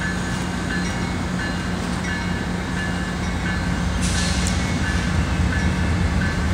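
Approaching diesel freight locomotive running with a steady low engine drone, its bell ringing about once every 0.7 s. A brief hiss comes about four seconds in, and the sound grows slightly louder as the train nears.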